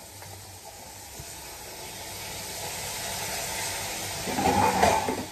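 Chopped vegetables sizzling in hot oil in a kadhai. The hiss builds steadily and is loudest just before the end.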